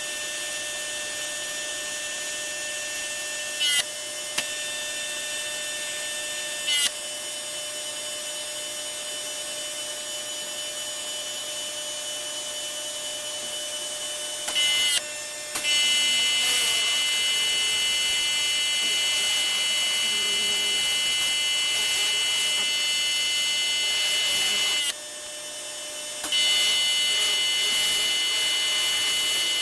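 Pressure washer running: a steady high-pitched whine that shifts pitch with short glides several times and cuts out briefly about 25 seconds in before coming back.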